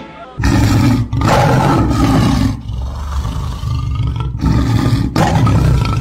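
A loud, deep roar that starts about half a second in as the music cuts off, broken by several brief gaps.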